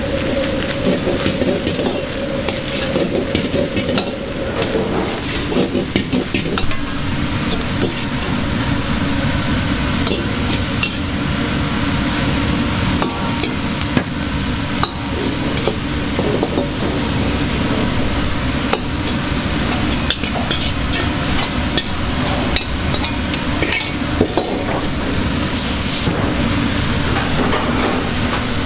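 Egg fried rice sizzling in a wok while a metal ladle stirs and scrapes through it, with frequent sharp clacks of metal against the wok.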